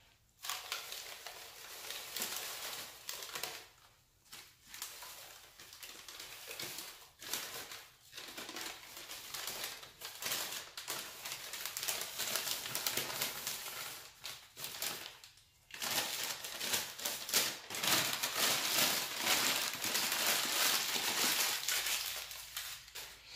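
Newspaper packing crinkling and rustling as it is shaken and crumpled by hand to knock feeder crickets out into a plastic tub, with a few short pauses.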